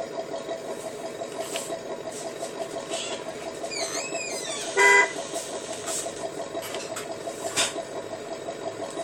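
A vehicle engine idles with a steady pulsing note. About five seconds in, the horn gives one short toot, the loudest sound.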